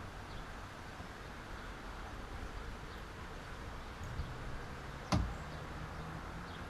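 Faint steady background noise with a single sharp click about five seconds in, likely from handling the furnace's element wire and ceramic insulators.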